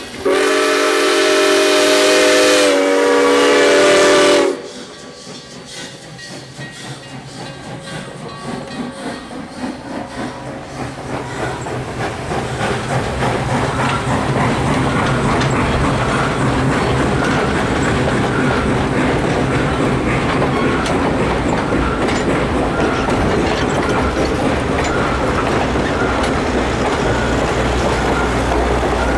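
Canadian National 7470, a 1921 O-18a 0-6-0 steam locomotive, sounds one long blast of several notes at once on its steam whistle, lasting about four seconds. A rhythmic rumble then builds as its passenger cars roll past, settling into a steady clickety-clack of wheels on the rails.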